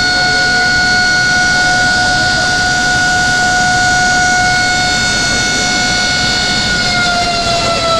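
Dam warning siren sounding one steady high tone, which starts to fall in pitch near the end as it begins to wind down, over a steady noise. The siren warns that the dam's gates are open and water is being released.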